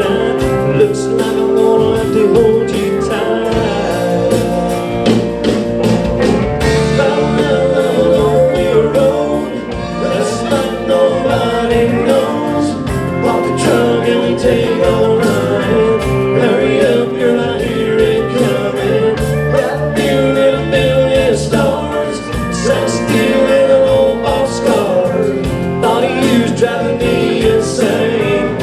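Live country band playing an instrumental break of a song, with guitar over a steady drum beat.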